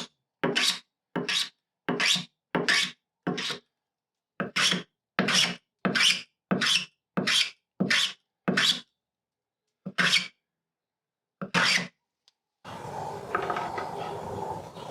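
Hand-tool strokes shaping a wooden carry handle, chamfering and rounding over its edges: a run of quick scraping strokes, about two a second, broken by a few short pauses. Near the end the strokes stop and a steady hum takes over.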